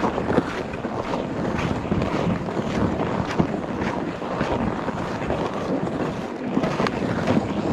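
Footsteps on packed snow at a walking pace, about two steps a second, with wind noise on the microphone.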